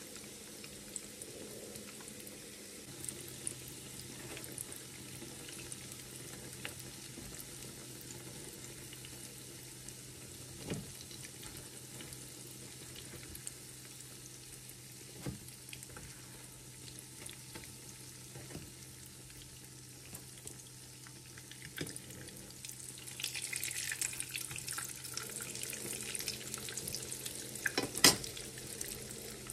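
Cottage-cheese dough pastries (pyshki) shallow-frying in hot oil in a pan, a steady sizzle with a few sharp clinks of a fork against the pan. The sizzling gets louder about three-quarters of the way through, and the loudest clink comes near the end.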